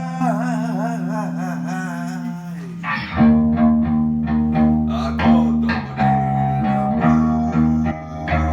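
Guitar music: for about the first three seconds, wavering bent notes over a held low note, then picked notes in a steady rhythm over a bass line.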